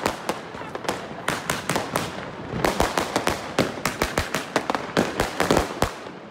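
Fireworks going off: a dense, irregular string of sharp bangs and crackles from aerial bursts, thickest in two clusters, about halfway through and again near the end.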